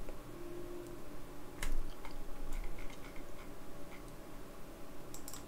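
A few sparse, separate clicks from a computer mouse and keyboard, with a cluster of quick clicks near the end, over a faint steady low hum.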